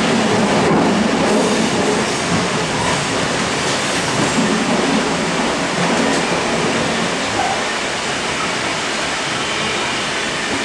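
Steady running noise of a Sydney Trains K-set electric multiple unit under way, heard from inside the carriage: the rumble and hiss of wheels on rail and running gear, easing off slightly about halfway through.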